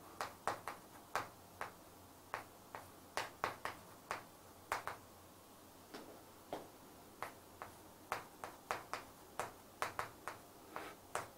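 Chalk writing on a chalkboard: an irregular string of faint, sharp taps, a few each second, as the chalk strikes the board with each stroke.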